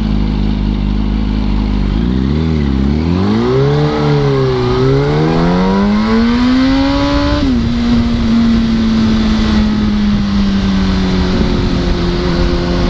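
2005 Yamaha R1's inline-four engine under hard acceleration. The note rises and falls a couple of times, then climbs steadily and drops sharply at an upshift about seven and a half seconds in, settling into a steady cruise with wind rushing over the microphone.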